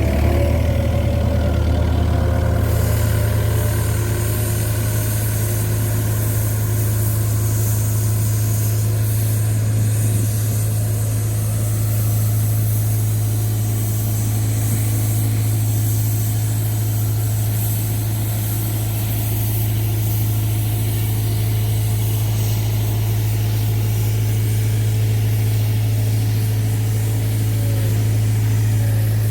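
Road roller's diesel engine running steadily with a strong, even low hum.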